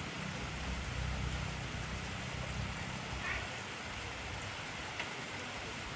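Heavy rain falling steadily, with a low rumble underneath that fades out about halfway through and a few faint drip ticks.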